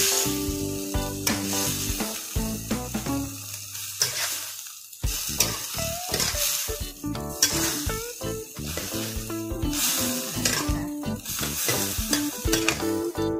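Amaranth greens with chillies sizzling in a hot wok while a metal spatula stirs and scrapes them around the pan, with a brief lull about four seconds in before the stirring picks up again.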